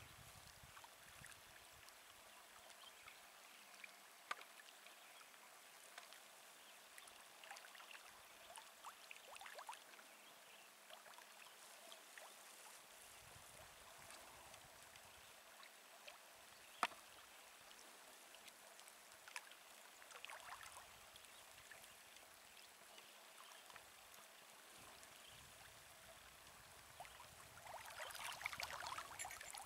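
Faint water sounds, soft lapping and small splashes, with a few sharp clicks scattered through. A louder stretch of splashing comes near the end.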